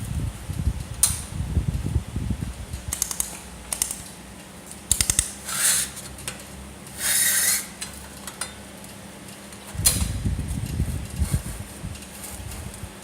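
Workshop sounds at a laser welding machine: metal parts clinking and knocking with handling rumble, a steady low machine hum, and two short hissing bursts in the middle.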